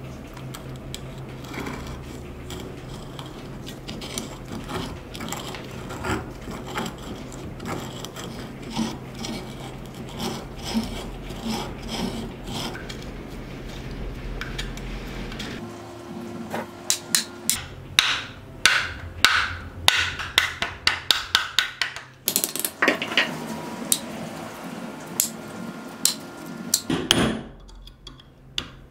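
Clinking and scraping of a rusty steel lock being handled, over a steady low hum. After about fifteen seconds comes a quick series of sharp hammer taps on a steel punch against the lock's internal cam and hub, two or three a second, with a brief pause in the middle.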